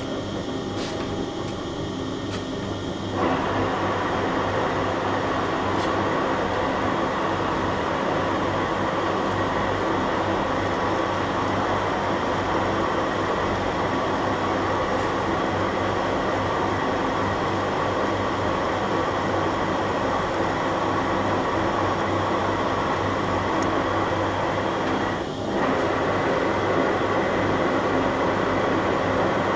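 Metal lathe running in screw-cutting mode, its gear train and imperial lead screw driving the carriage with the half nuts engaged while it cuts a 3.5 mm pitch thread in steel. A few light clicks come in the first seconds, then the running noise steps up louder about three seconds in and dips briefly near the end.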